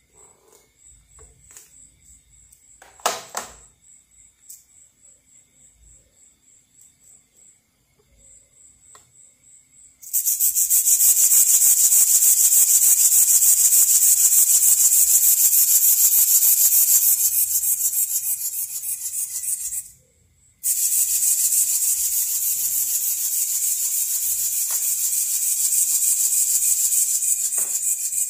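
Two Emax ES08MA micro servos flapping ornithopter wing spars fast, a loud rasping buzz with a quick even beat. It starts about ten seconds in, stops for a moment around twenty seconds and starts again. Before it there is faint high ticking and one sharp click.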